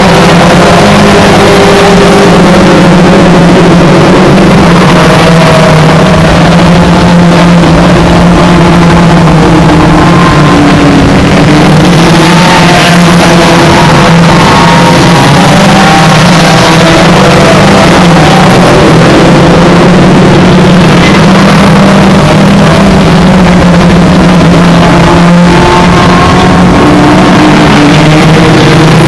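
Hot rod race car engines running and revving: a loud, unbroken drone with engine notes rising and falling over it.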